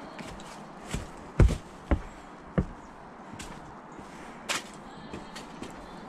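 Footsteps of a person walking on a paved trail path: several uneven steps, the loudest about one and a half seconds in, over a steady outdoor hiss.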